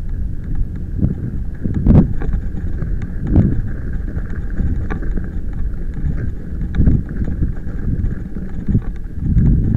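Bicycle riding fast over a loose gravel and stone track: a steady low rumble of tyres on gravel with frequent knocks and rattles as the wheels hit stones. It gets louder near the end as the track turns rougher.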